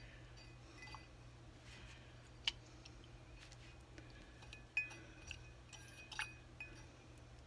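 Small copper chain clinking faintly against a glass measuring cup as it is dipped and moved in tarnish remover: scattered light taps with three sharper, briefly ringing clinks about two and a half, five and six seconds in.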